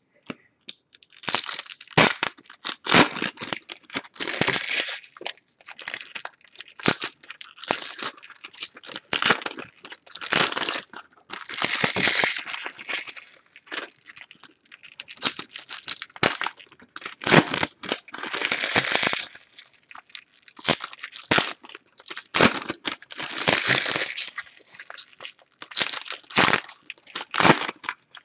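Foil and plastic wrappers of baseball card packs being torn open and crinkled by hand, in irregular bursts of crackling with short pauses between them.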